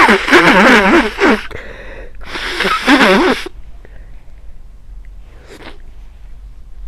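A person with a head cold sneezing in a fit: one loud sneeze running on into the first second and a half, a second sneeze about two and a half seconds in, then a short sniff near the end.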